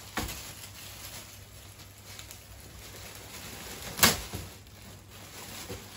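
Clear plastic wrapping around a backpack rustling and crinkling as it is handled, with one sharp, loud crackle about four seconds in.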